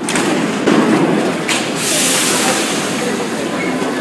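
RATP MF67 metro train starting to pull away from the platform: a few clunks in the first second and a half, then a loud hiss of air from about two seconds in over the running rumble.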